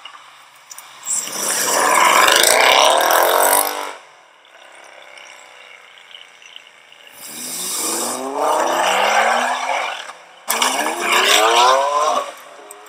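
Supercar engines accelerating hard in three bursts, each a rising engine note. The first burst stops abruptly and the last starts abruptly.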